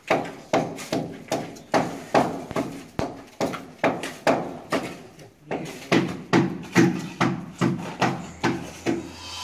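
Hand hammer striking repeatedly at a metal-framed glass door's edge, chipping out the wall around the frame to remove the door. The blows come in a steady rhythm of about two to three a second, with a short pause about five seconds in.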